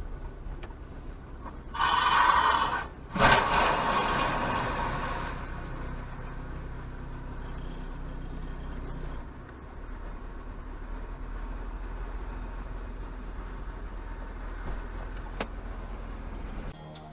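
A large vehicle, seemingly a truck, overturning onto its side, heard from inside a car's cabin: a loud rush of noise about two seconds in, then a heavy crash just after three seconds that dies away over the next two seconds. After that, only the low steady hum of the car.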